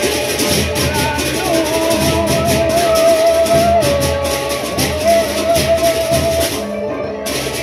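Sasak traditional music: a bamboo suling flute plays long held notes with a wavering vibrato over a steady rhythmic percussion accompaniment with shaker-like ticks.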